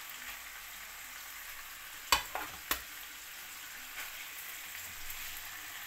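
Chicken breast pieces sizzling steadily in olive oil in a frying pan as they start to brown. A little after two seconds in come two sharp knocks, about half a second apart, of a utensil against the pan.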